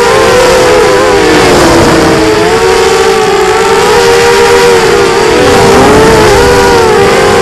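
Brushless motors and propellers of a Quadrysteria Mini Mamba V2 FPV racing quadcopter, heard through its onboard camera as a loud, several-toned whine. The pitch rises and falls with the throttle, sweeping down briefly and back up about five and a half seconds in.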